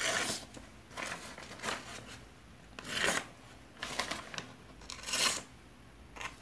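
Blade of an Invictus Bold tanto knife slicing a sheet of paper in about half a dozen short rasping strokes, roughly one a second. It is a sharpness test: the edge is not very keen but does cut the paper.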